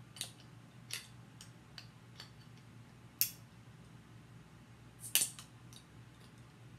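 Metal bottle opener clicking and scraping against the crown cap of a glass beer bottle while it is levered open: a scatter of sharp small clicks, the loudest about three and five seconds in.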